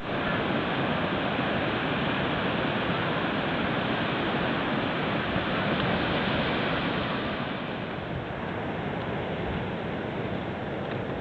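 Ocean surf breaking and washing up a sandy beach, a steady rush of noise that grows a little softer about two-thirds of the way in.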